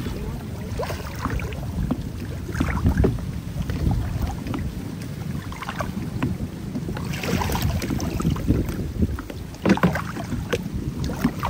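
Water sloshing and splashing in shallow floodwater, with irregular rustles and knocks. Wind rumbles on the microphone.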